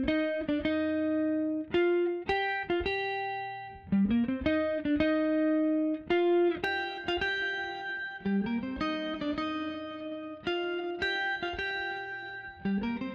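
Background music: a plucked-string melody with notes that slide up in pitch, in a steady repeating pattern.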